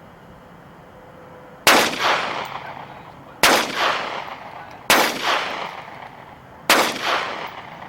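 Four pistol shots fired at an uneven pace, about a second and a half to two seconds apart, each sharp crack trailing off in a long echo.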